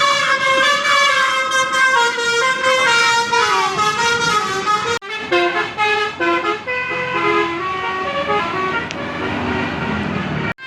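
Indonesian bus 'telolet' Basuri multi-tone air horn playing a stepping melody of held notes, cut off about halfway through and followed by another telolet horn tune.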